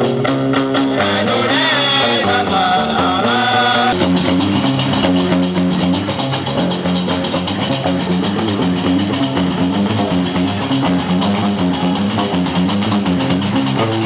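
Live Gnawa music: a guembri bass lute plucking a repeating line under the steady clacking of qraqeb iron castanets, with a man singing. About four seconds in the mix turns denser and brighter.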